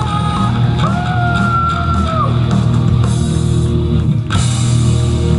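Live band playing rock music through a PA, loud and dense, with a long held note sliding in about a second in and falling away a second and a half later.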